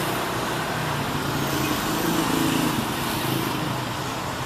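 Street traffic noise, with small motorcycle engines running among passing cars. It is a steady mix that swells slightly about two seconds in.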